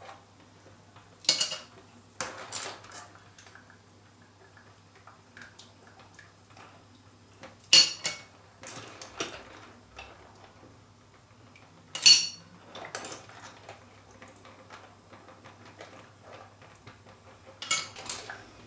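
Stainless steel tongs clinking against the rim of a steel pot as cockles that have opened in hot water are picked out one at a time, their shells clattering into a ceramic bowl. Sharp single clinks a few seconds apart, the loudest about eight and twelve seconds in.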